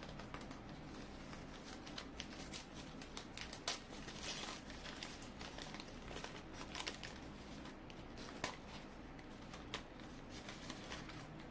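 Brown kraft packing paper crinkling and rustling as hands unwrap a potted plant from a cardboard shipping box, in irregular crackles, with a sharper crackle a little under four seconds in.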